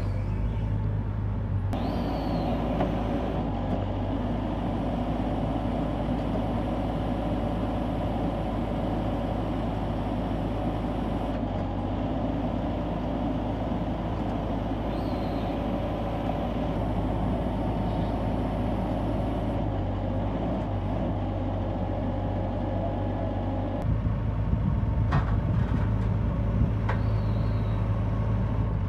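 Hitachi Zaxis 140W-3 wheeled excavator's diesel engine running steadily, growing louder near the end.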